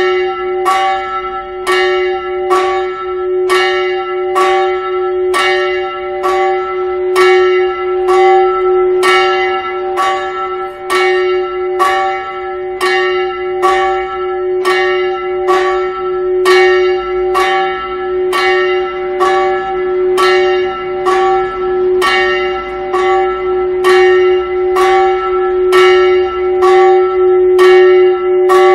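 A 230 kg small church bell swinging and ringing before a service, its clapper striking about once a second in an even rhythm, the bell's tone ringing on between strokes.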